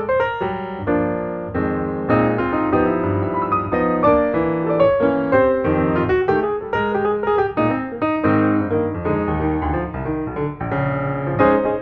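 Background piano music, a steady flow of notes with no pauses.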